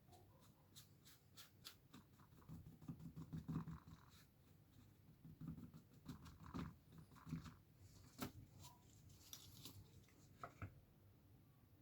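Faint handling noises of polish being worked by hand onto plastic trim: short rubbing and scraping strokes with scattered small clicks and light knocks.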